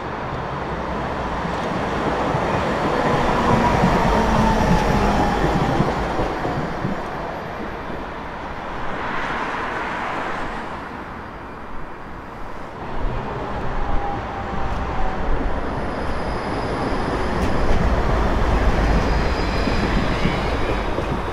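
Yellow city trams running on street track: a steady rumble of wheels on rail, with a whine that falls in pitch a few seconds in and again briefly about two-thirds of the way through.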